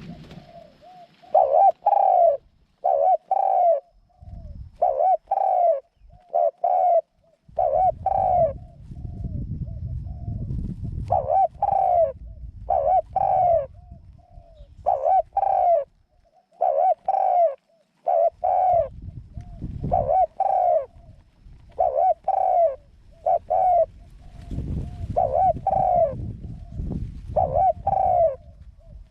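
A captive decoy dove cooing over and over, short low coos grouped in twos and threes with brief gaps between groups. A low rumbling noise comes and goes under the calls.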